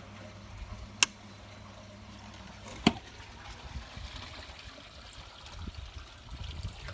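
Two sharp clicks about two seconds apart as the mains supply is switched off and the Power Jack inverter switches over to battery, over steady trickling water from the koi pond. A low hum is present until the second click and fades after it.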